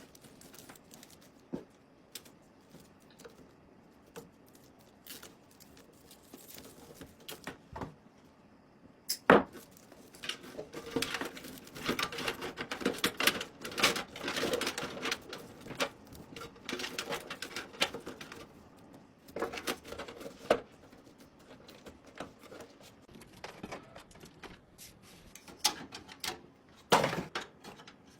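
Small hard objects being handled: scattered clicks, taps and rustling, busiest in the middle, with one sharp knock about nine seconds in.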